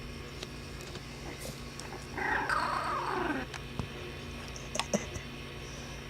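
Basenji puppy giving a wavering, yowling call of about a second, its pitch sliding down at the end, followed by a few light clicks.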